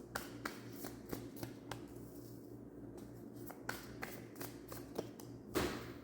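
Scattered light clicks and taps from hands handling small objects, with a brief rustle near the end. A steady low electrical hum runs underneath.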